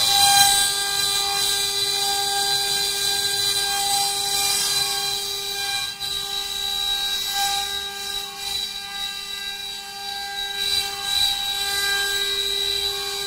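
Four-axis CNC wood carving machine running: a steady, high spindle whine with a hiss from the bits cutting wood.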